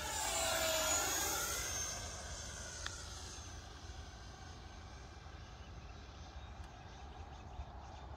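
Twin 64 mm electric ducted fans of an E-flite F-15 Eagle model jet whining on a fast pass. The pitch falls steadily as it goes by, loudest about a second in, then fades to a faint distant hum.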